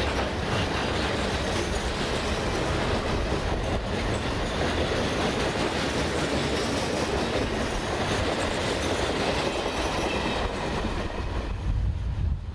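Norfolk Southern freight train's hopper cars rolling past close by: a steady rumble and rattle of steel wheels on the rails. Near the end a lower rumble of wind on the microphone takes over.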